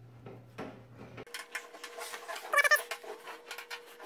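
Screwdriver clicking and scraping as bolts are tightened on a stainless steel patio heater reflector, with a brief high squeal that wavers in pitch about two and a half seconds in.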